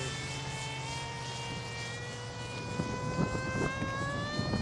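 Electric motor and propeller of an RC foam T-50 jet whining in flight at full throttle, a steady buzz that slowly rises in pitch.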